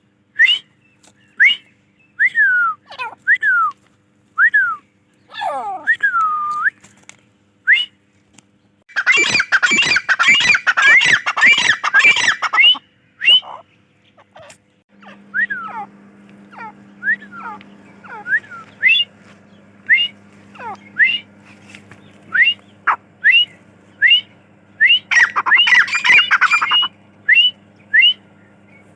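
Grey francolin (Dakhni teetar) calling: a series of short whistled notes, some sliding down and others sweeping sharply up. About nine seconds in comes a loud, rapid run of overlapping notes lasting some three seconds, and a shorter one follows near the end.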